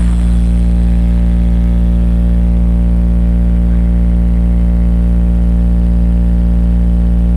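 Large DJ sound system playing one very deep bass tone held steady and loud for several seconds.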